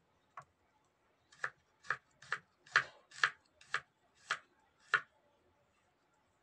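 Kitchen knife slicing shallots, garlic and chillies on a wooden cutting board. About nine sharp knocks, roughly two a second, as the blade comes down on the board.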